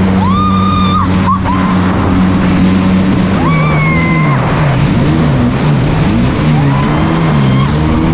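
Jet ski engine running hard over open water, with wind and spray rushing; about three seconds in its pitch starts swinging up and down as the throttle and hull load change. A rider's short high-pitched yells come through twice.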